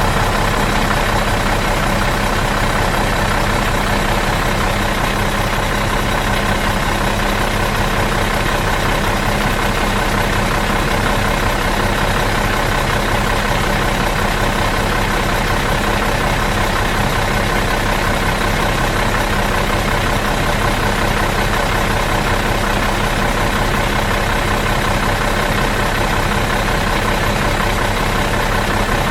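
Bus diesel engine idling in neutral, a steady, even hum that does not change.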